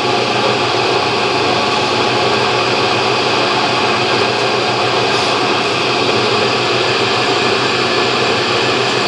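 Drilling machine's motor and spindle running steadily, a continuous hum with several fixed tones.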